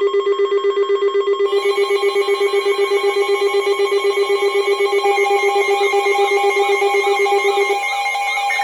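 Loud electronic emergency alert tones sounding between warning messages. A low tone pulses rapidly, about eight times a second, over a stack of steady tones. A warbling tone joins partway through, and the low pulsing tone cuts off near the end.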